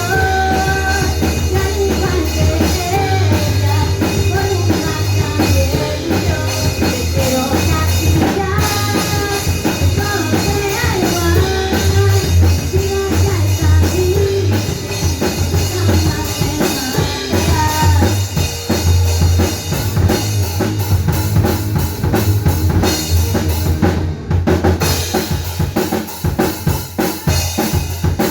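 Live band playing, with a full drum kit and a heavy, steady bass line under a melodic line. The music briefly cuts out about three-quarters of the way through, then carries on.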